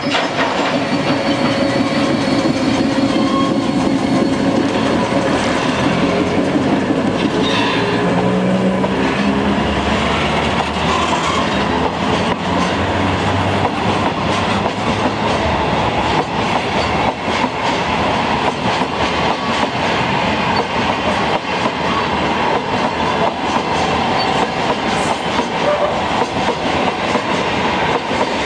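Cement freight train passing slowly: an ED45 electric locomotive hums in the first few seconds, then black Taki 1900 cement tank wagons roll by with a steady rumble and clatter of wheels on rail.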